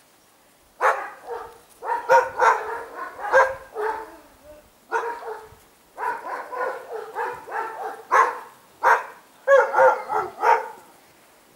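Dogs barking in quick runs of short barks and yelps, starting about a second in.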